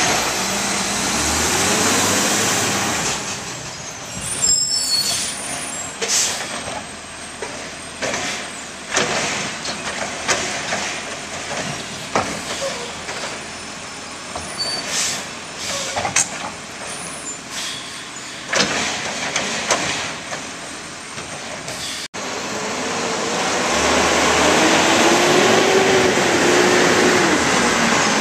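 Automated side-loading garbage truck's diesel engine revving as it pulls away from a cart it has just emptied. It then grows fainter, with scattered knocks and clanks, before growing loud again about 23 s in as the truck drives up, engine pitch rising and falling.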